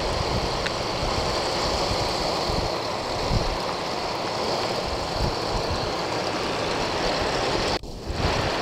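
Heavy rain pouring steadily in a summer thunderstorm, with gusting wind: an even hiss with an uneven low rumble beneath. The sound cuts out for a moment near the end.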